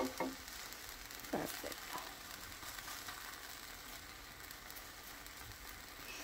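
Pancake batter frying with a steady, soft sizzle in a nonstick pan, with a couple of short sounds from a nylon spatula working under the pancake about one and a half to two seconds in.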